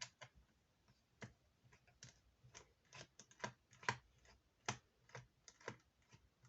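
Faint, irregular small clicks and taps, a dozen or so, as a precision Phillips screwdriver works the small screws out of a laptop's bottom panel.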